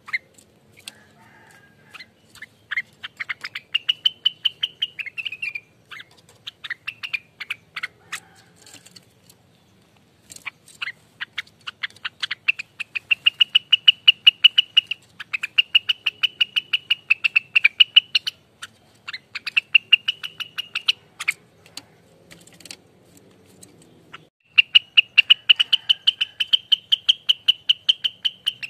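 Rengganis songbird giving its rapid rattling 'ropelan' calls: fast runs of about ten sharp notes a second, in bursts of a few seconds separated by short pauses.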